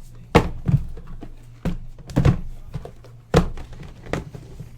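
A series of about six dull thunks at uneven intervals, from card boxes being handled and set down on a table.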